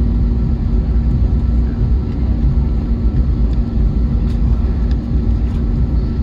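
Cabin noise of an Airbus A321neo on the ground with its engines at idle: a steady low rumble with a constant hum.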